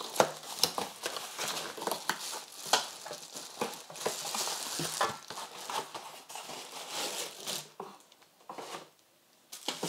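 Cardboard box being opened and its packaging handled: crinkling and rustling with many small knocks and clicks, which die away near the end.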